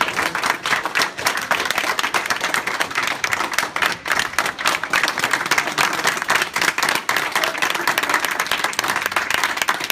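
A roomful of people applauding, steady and loud throughout.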